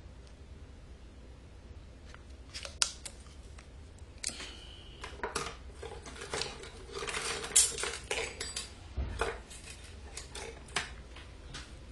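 Handling noise from a paper strip and a soda can clamped in a drill chuck: scattered light clicks and taps with rustling and scraping, busiest about seven to eight seconds in, and a dull thump about nine seconds in.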